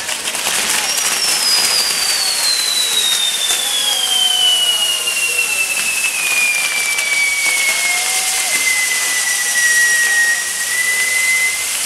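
Maltese ground fireworks (nar tal-art) burning: a single long whistle falls slowly in pitch for about ten seconds, over a steady hiss and dense crackle of the burning set piece.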